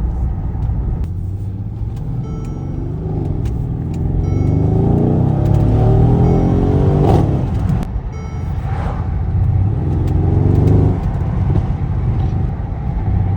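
Mercedes-AMG GLE63's twin-turbo V8 on its stock exhaust, revving up in a long climb to about seven seconds in, dropping sharply, then climbing again briefly.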